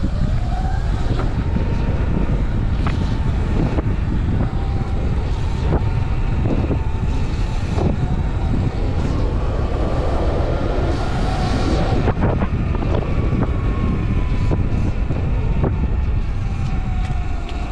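Sur-Ron X electric dirt bike riding: steady wind rush on the microphone over the motor's whine, which rises and falls with speed, with scattered sharp knocks from the bike.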